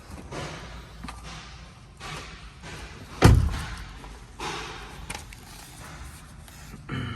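Handling and scraping noises with one heavy slam about three seconds in.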